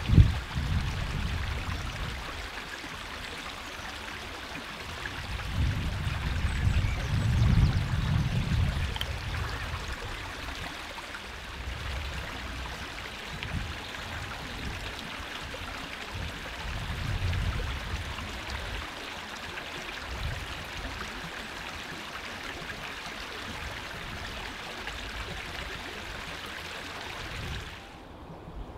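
Steady rushing outdoor noise with low rumbling gusts of wind buffeting the microphone every few seconds, and a single sharp knock right at the start.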